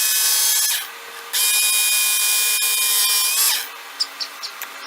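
Work Sharp Knife & Tool Sharpener running with a high whine as a knife blade is drawn across its 220-grit sanding belt: one run stops about a second in, and a second pass of about two seconds follows, its pitch dropping as the motor winds down. A few light clicks follow near the end.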